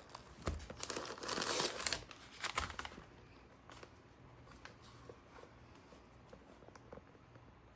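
Packaging being crinkled and torn for about two and a half seconds, then a few faint handling ticks.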